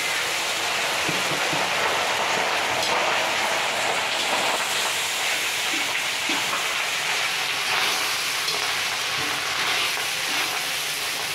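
Cooked rice sizzling in hot oil in a large wok as it is made into fried rice, with a steel spatula stirring and scraping through it; the hiss is steady throughout.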